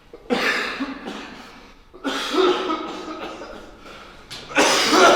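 A man coughing hard in three bouts, about two seconds apart, each a loud hack that trails off.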